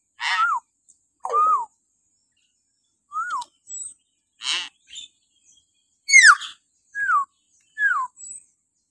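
Hill myna giving a string of about nine shrill calls: short whistles that fall in pitch, mixed with harsh, noisy screeches. The loudest is a falling whistle about six seconds in.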